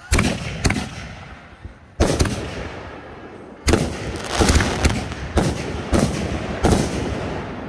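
Aerial fireworks bursting overhead in a series of sharp bangs: two near the start, two more about two seconds in, then a quick run of bangs from about three and a half seconds until near the end.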